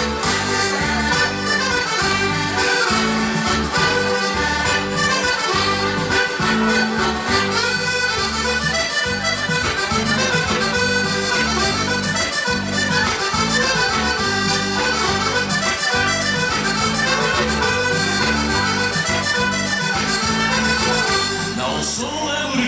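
Chromatic button accordion playing a lively tune, with sustained melody notes and a steady, regular beat in the bass underneath.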